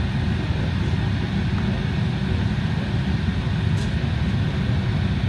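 Steady low rumble and air hiss inside the cabin of an Embraer ERJ-175 at the gate, with a faint constant hum from the aircraft's systems and ventilation.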